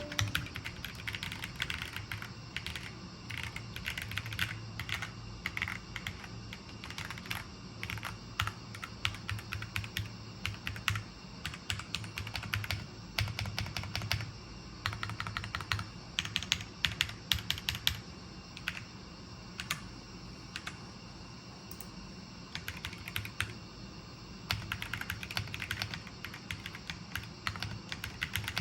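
Typing on a MonsGeek M1W mechanical keyboard: a steady stream of irregular key clicks with the odd short pause.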